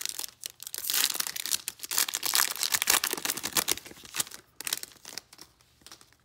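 Foil wrapper of a 2021 Panini Playoff football card pack being torn open and crinkled in the hands: a dense crackle, loudest for the first four seconds, then fading away.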